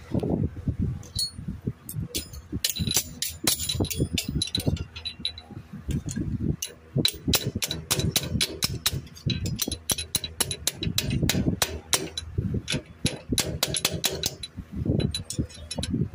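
Hammer striking a steel drift held against a differential pinion housing: rapid, irregular metallic taps, several a second, with a light ring. The taps drive a part into the housing.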